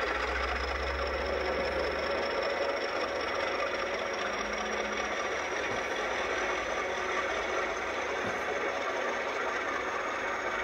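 British Rail Class 50 diesel-electric locomotive 50031 'Hood' passing close by, its English Electric 16-cylinder diesel engine running steadily. The coaches then roll past. The engine is heaviest in the first couple of seconds.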